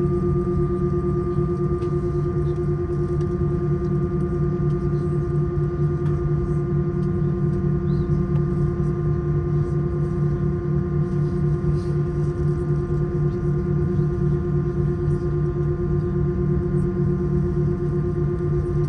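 Airbus A319 jet engines idling, heard from inside the cabin as a steady hum with a few held tones over a low rumble, while the aircraft stands on the ground waiting to take off.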